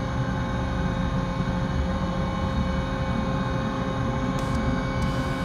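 CNC machine running with its spindle turning: a steady low rumble with a constant whine of several steady tones over it, and a couple of short hissy bursts near the end.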